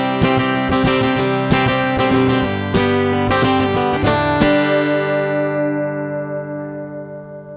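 Closing bars of a country song: acoustic guitar strumming with the band, then a final chord struck at about four and a half seconds that rings out and fades away.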